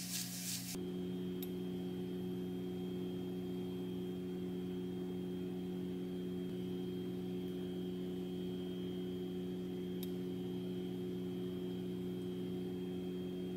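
Steady electrical hum of an induction cooktop heating a pan on low, with a faint high whine above it. A brief rustle stops just under a second in, and there are two faint ticks, one about a second in and one near ten seconds.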